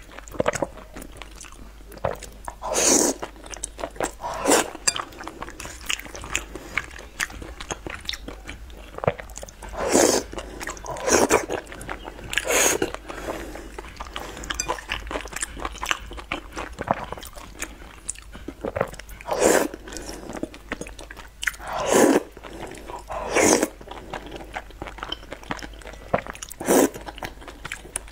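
Close-miked eating of saucy noodles: steady chewing and wet mouth sounds, with a louder slurp every few seconds, about nine in all.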